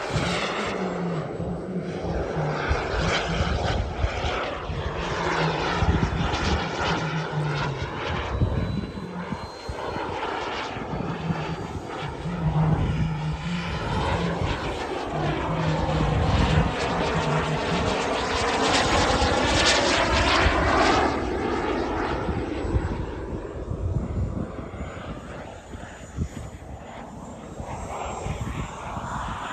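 Turbine engine of a 1:4 scale Tomahawk Aviation F-16 RC jet in flight, a steady jet rush that swells as the model passes closest, about two-thirds of the way in, with a sweeping whoosh, then fades as it moves off near the end.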